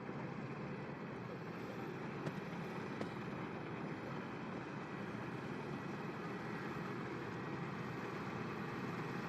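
Combine harvester running steadily, an even machine noise, with two faint clicks about two and three seconds in.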